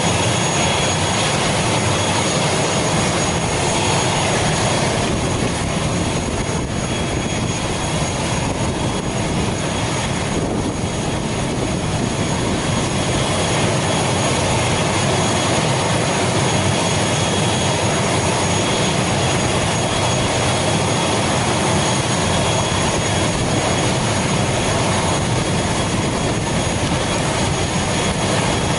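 ATR 72-500 turboprop's Pratt & Whitney PW127 engine running at ground idle with the aircraft parked, a steady loud rushing noise with a thin high whine held on one pitch. With the visible left propeller stopped, this is the right engine kept running in hotel mode, propeller braked, to power the aircraft during boarding.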